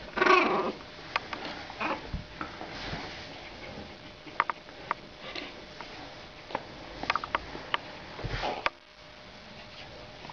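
Four-week-old French bulldog puppies sniffing and snuffling as they play, in short noisy bursts: the loudest right at the start and another about eight seconds in, with scattered light clicks between.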